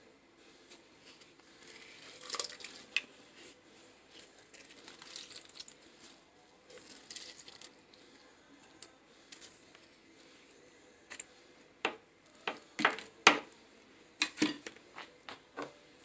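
Fresh lime squeezed by hand over a clay mortar: soft wet squishing and rustling of the rind. Several sharp clicks and knocks follow in the last few seconds.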